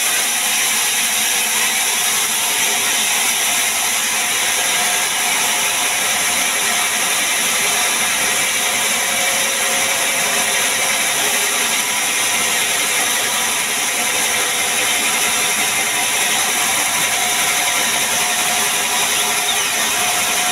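Sawmill band saw running steadily: a loud, even, high-pitched whirring hiss from the blade and machinery that does not change.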